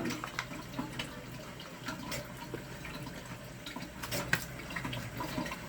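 A pot of water heating on the stove: a steady watery hiss with a few light clicks and a sharper clink about four seconds in.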